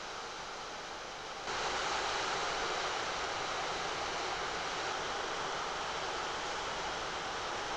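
Steady rain falling, an even hiss that jumps louder about a second and a half in.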